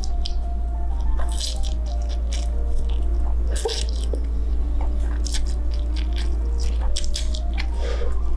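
Person slurping and chewing a mouthful of spicy instant noodles eaten with a fork, a series of short wet slurps and bites.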